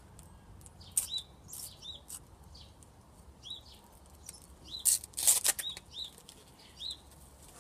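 Foil wrapper of a Panini sticker packet being crinkled and torn open by hand: irregular crackly rustles, loudest about five seconds in.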